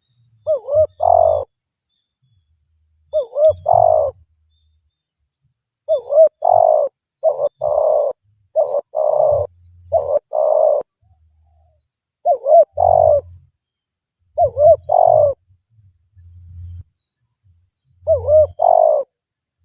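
Spotted dove (tekukur) cooing in repeated short phrases. Each phrase is a quick cluster of two to four coos, and the phrases come every one to three seconds.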